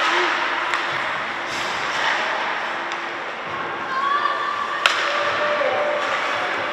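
Ice hockey rink ambience during play: a steady hiss of skates and arena noise, with faint distant shouts. There is one sharp crack from the play just before five seconds in.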